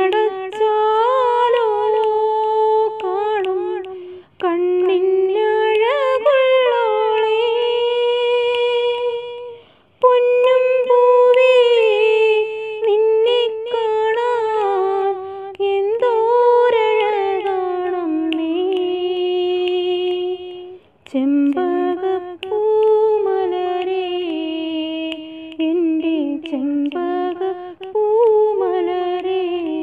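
A woman singing a Malayalam song unaccompanied, one voice in long ornamented phrases that slide between notes, with short pauses for breath about 4, 10 and 21 seconds in.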